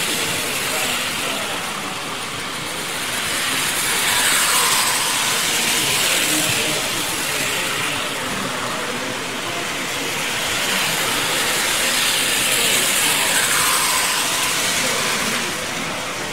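Playcraft model trains running round the layout: a steady whirr of small motors and wheels on the rails that swells twice as trains pass, over the hum of voices in the hall.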